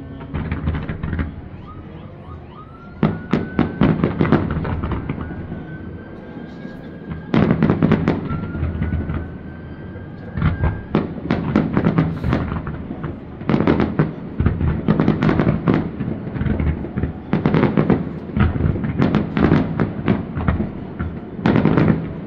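Aerial fireworks display: about seven volleys of sharp bangs and crackle, each lasting a second or two, come every few seconds. A faint, slowly rising whine is heard between some of the volleys.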